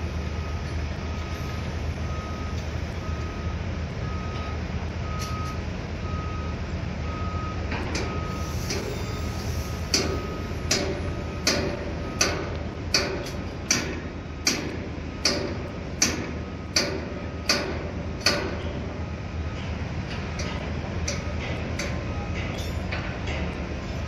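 Construction machinery running with a low rumble while a reversing alarm beeps steadily, fading out after about eight seconds and coming back faintly near the end. From about ten seconds in come about a dozen sharp, evenly spaced bangs, a little over one a second.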